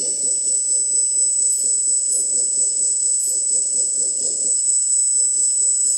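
Small electric hydraulic pump of an RC hook-lift truck running steadily: a constant high whine over a fast, even low pulsing.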